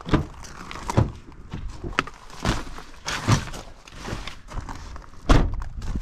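A series of knocks and thunks from a car's driver's door being opened by its handle and someone climbing in, the loudest a low thump about five seconds in.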